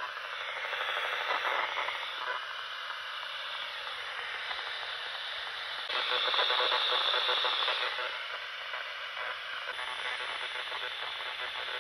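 P-SB7T spirit box sweeping the FM band at its 100 ms rate: a choppy radio hiss broken up by the rapid station changes, with the same kind of noise over and over. It gets louder for about two seconds from around six seconds in.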